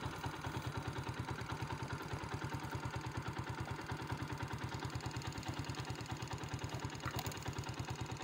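Motorcycle engine running slowly with a steady, even beat of about ten pulses a second.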